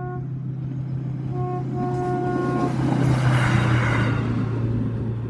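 EV100 track evaluation car's horn: the tail of one blast, then a short blast and a longer one about a second later. The rush of the rail vehicle passing close by follows, loudest about three and a half seconds in, over a steady low hum.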